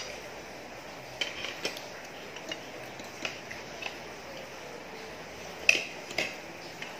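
A fork clinking and scraping against a plate: a scattering of light, sharp clicks, the loudest one a little before the end.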